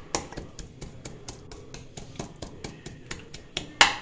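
Metal utensil tapping and scraping against a non-stick pan as boiled chicken is shredded in it: a quick run of light knocks, about four to five a second, with a louder knock near the end.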